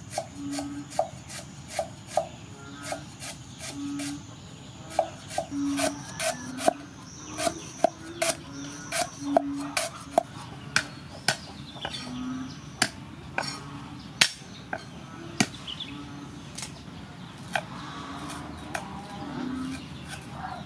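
A cleaver slicing lemongrass stalks on a thick round wooden chopping block: a run of sharp knocks, a few a second and unevenly spaced, as the blade strikes the wood.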